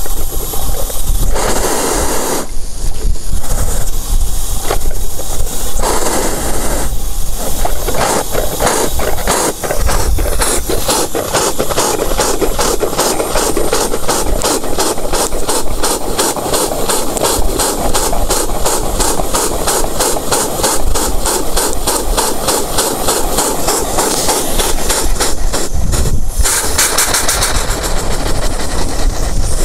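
Homemade steam motorcycle's steam engine warming up: short bursts of steam hiss at first, then from about eight seconds in a rapid, even chuffing as the engine runs. Near the end the chuffing gives way to a loud, steady rush of venting steam.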